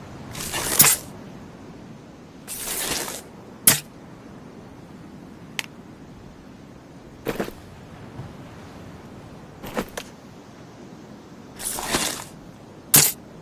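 Compound bow and arrow sound effects: several short swelling whooshes, each ending in a sharp snap, with a few lone and paired clicks between them.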